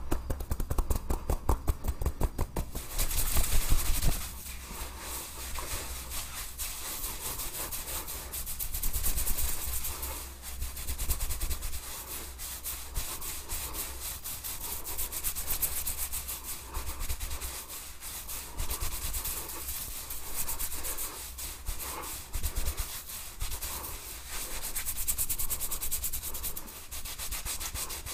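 Head massage close to the microphone: fingers rubbing and scratching through hair and over the scalp in a dense, scratchy rustle that swells and eases. It opens with about three seconds of quick, light taps.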